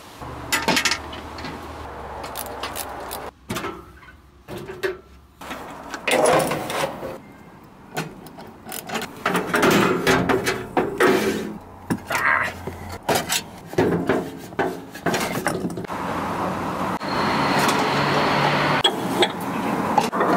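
Clicks, clinks and knocks of hand tools and metal fittings being handled while a rubber gas hose is fitted to a regulator and gas pipe.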